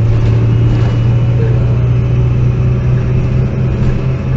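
MAN NL223 city bus's diesel engine running steadily while the bus is under way, heard from inside the passenger cabin as a steady low drone over road noise.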